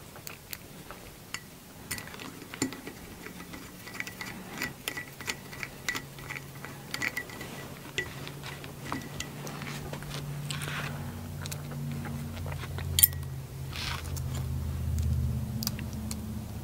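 Screwdriver and small metal kit parts clicking and clinking as a screw is turned into a stepper-motor mount and the parts are handled. Rapid light ticks come through the first half. A faint low hum rises in the second half, and there is one sharp click near the end.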